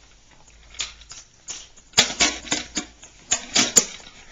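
Irregular knocks, clicks and rustling right at the microphone, bunched in the second half: a toddler's hands grabbing and handling a small Flip camcorder.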